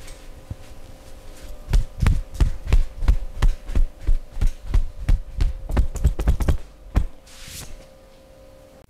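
Percussive massage: hands striking a person's body in quick rhythmic thumps, about three a second, starting about two seconds in and lasting some five seconds, over a faint steady hum. A short hiss follows near the end.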